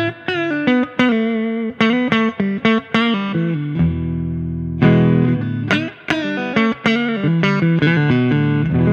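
Electric guitar playing quick picked runs of single notes, broken by a few held, ringing chords.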